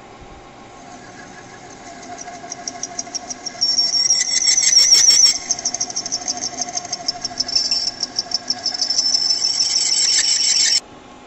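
Lathe cutting tool squealing against a spinning metal rod as it takes a cut: a high-pitched, rapidly pulsing squeal that starts about a second in, is loudest around four to five seconds, and cuts off suddenly near the end. The steady hum of the running lathe lies under it.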